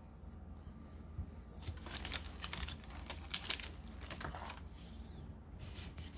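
Pokémon trading cards being handled and laid down: faint, irregular flicks, slides and light taps of card stock.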